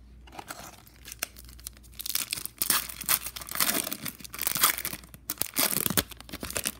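Trading-card pack wrapper being torn open and crinkled by hand. There are light crinkles at first, then a dense stretch of tearing and crackling from about two seconds in until near the end.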